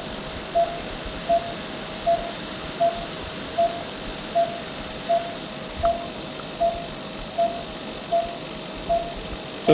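Patient monitor beeping at a steady pulse rate, one short tone about every three-quarters of a second, over a steady hiss of air from the CPAP, which is switched on.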